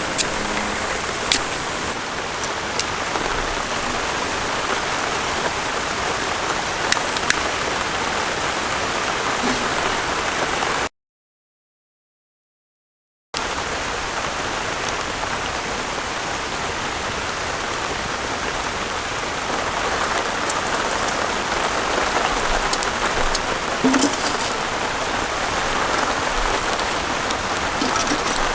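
Steady rain falling, a continuous hiss with scattered sharp drip ticks. It cuts to complete silence for about two seconds partway through, then resumes.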